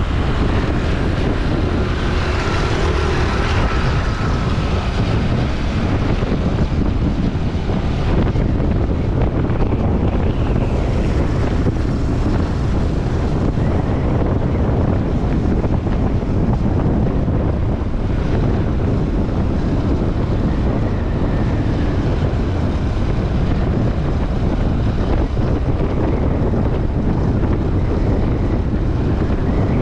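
Wind buffeting the microphone of a camera riding on a moving bike: a loud, steady rushing noise, heaviest in the low end, with street traffic under it.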